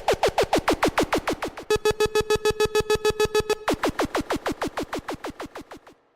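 Synthesized DJ sound effect: a fast train of zaps that each drop sharply in pitch, about seven a second, with a steady buzzing tone under them in the middle stretch. It fades out just before the end.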